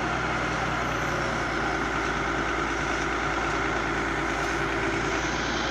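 Excavator diesel engine running steadily, with a continuous mechanical hum.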